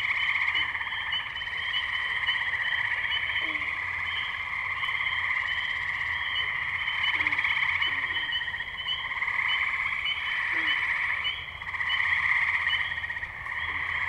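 Chorus of tree frogs in a spring wetland. A dense, pulsing trill swells and fades every few seconds, short high peeps repeat about twice a second above it, and a few short low calls come in now and then.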